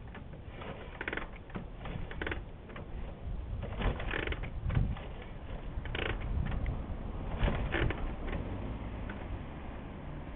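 Kick-starter of a 1939 Harley-Davidson Knucklehead overhead-valve V-twin being worked, giving a string of irregular mechanical clacks and knocks as the engine is turned over without firing.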